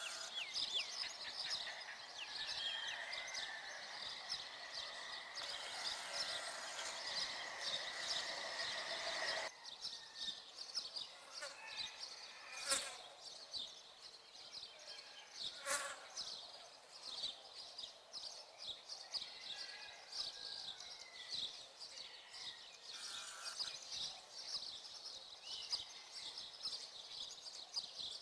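Small birds chirping and twittering in a rapid, continuous stream of high calls, with a few whistled notes. Two sharp clicks come near the middle.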